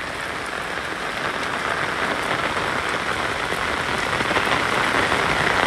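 Heavy tropical downpour: a dense, steady hiss of rain pouring onto plants, paving and stone, growing gradually louder.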